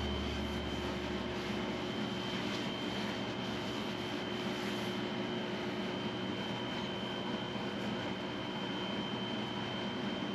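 An electric motor running steadily: an even hiss with a constant high whine over it.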